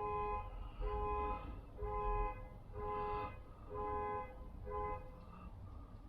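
Car alarm going off: a two-tone car horn beeping about once a second, about six times, stopping about five seconds in.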